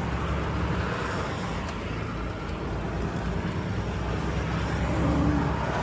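Semi truck's diesel engine running steadily under way, with road noise, heard from inside the cab.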